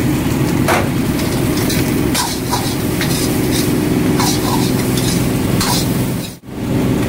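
Steel ladle scraping and knocking against a steel wok while rice is stir-fried, several separate scrapes over a steady low hum. The sound drops out for an instant near the end.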